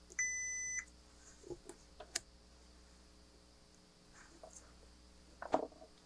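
Multimeter continuity beep: one steady, high tone of about half a second as the test probes touch the toggle switch's terminals, showing a closed circuit through the switch contacts. A few light clicks and taps follow, the loudest near the end.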